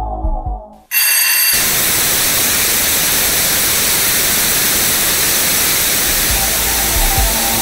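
Music fades out, then about a second in the loud, steady hiss of analogue TV static starts abruptly: a television tuned to an empty channel. Low beats of the music come back in faintly under the hiss near the end.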